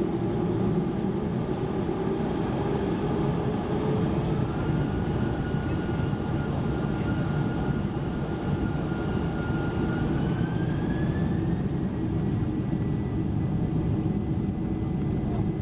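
Boeing 747-400 jet engines running at high thrust, heard from inside the passenger cabin: a steady roar with a thin engine whine that rises in pitch about ten seconds in.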